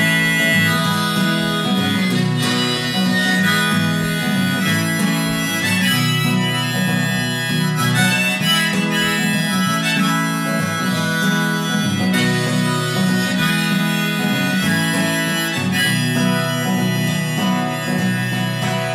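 Harmonica solo, played from a neck rack, over a strummed acoustic guitar: an instrumental break with no singing.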